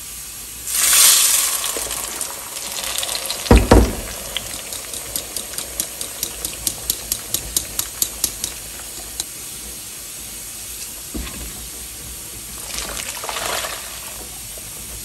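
Blended tomato poured through a metal mesh strainer into a glazed clay pot, splashing. Two knocks follow, then a run of quick, regular clicks, about three a second, as the purée is worked through the strainer; another pour splashes near the end.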